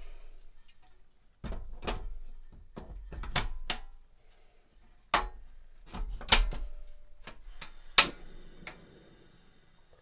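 Coleman portable butane stove having its gas canister changed: a series of metallic clicks and knocks as the canister is fitted and locked into place. About eight seconds in comes a sharp igniter click, followed by a hiss of gas as the burner lights.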